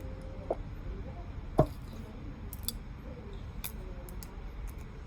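Light handling sounds of a pen and journal on a desk: a soft knock, then a sharper knock about a second and a half in, followed by a few faint high ticks, over a low steady hum.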